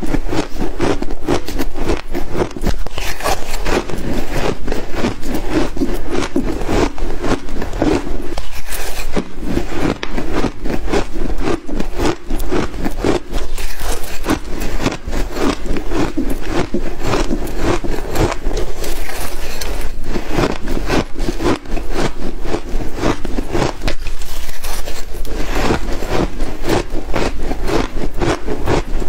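Shaved ice being chewed close to the microphone: a dense, continuous crunching crackle, with brief lulls between mouthfuls.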